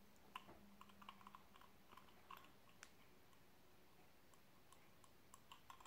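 Near silence broken by faint, scattered small clicks and taps from a brass mechanical vape mod's tube and fire-button parts being turned and handled in the fingers. The clicks come more often in the first three seconds and again near the end.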